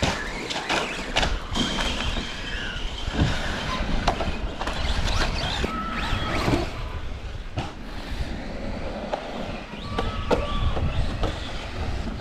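Radio-controlled trucks driving on gravel: electric motors whining in short rising and falling runs over the crunch of tyres on loose stones, with a knock now and then.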